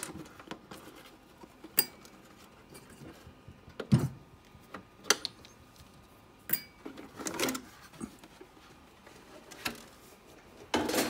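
Scattered clicks, knocks and light clinks as a plastic RC truck body shell and its small clips are handled and lifted off the chassis, with a louder clatter near the end.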